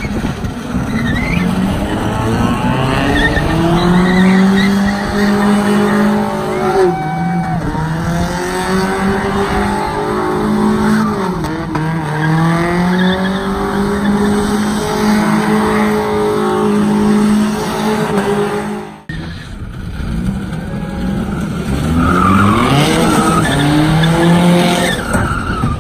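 A car engine at high revs, its pitch rising and falling as the car spins donuts with its tyres skidding and squealing on pavement. The sound breaks off abruptly about three quarters of the way through, then picks up again with the engine revving up.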